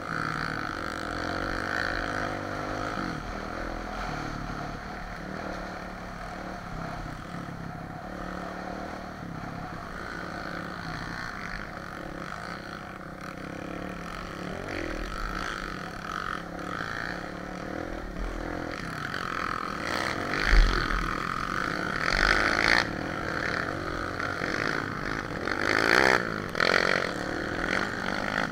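Dirt trail bike engine running at changing revs while riding a rough single track. About twenty seconds in, louder knocks and rattles from the bumpy trail join in, the sharpest of them about twenty and a half seconds in.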